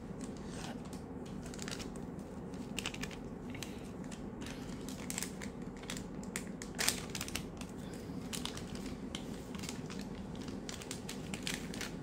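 Plastic blind-bag packet crinkling and crackling as it is torn open and handled, in scattered sharp crackles with one louder crackle a little past the middle.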